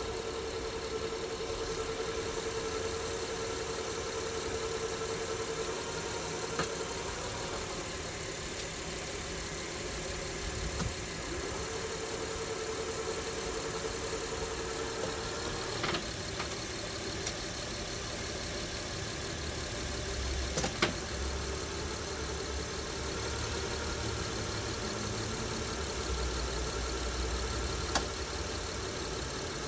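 2006 Honda Pilot's V6 idling with a steady whine on top, a whine that shows up only in Park and Neutral and that the owner thinks comes from the transmission. The whine drops out twice along the way, a few sharp clicks are heard, and a low rumble comes in near the end.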